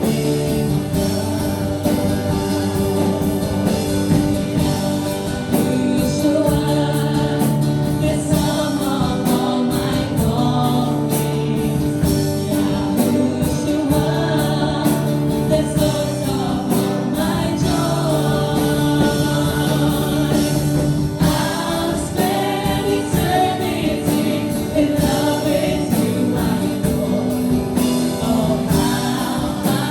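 Group of voices singing a Christian worship song in chorus over instrumental accompaniment.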